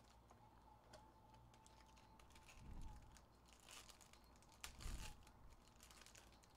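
Faint crinkling and tearing of a foil trading-card pack wrapper being ripped open by hand, with a few soft clicks and rustles.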